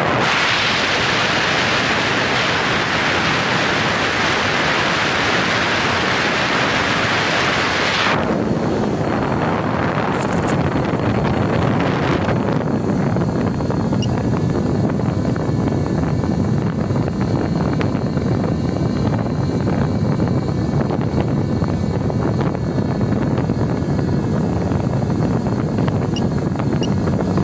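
Wind rushing over the microphone of a model plane in flight. It is a loud hiss for the first eight seconds, then drops suddenly to a lower, steadier rumble with a faint high whine underneath.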